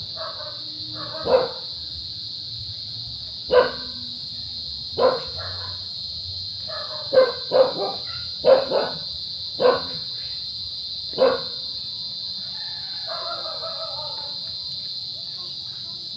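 A dog barking, about nine short barks, some single and some in quick pairs, spread over the first eleven seconds. A steady high-pitched drone runs underneath.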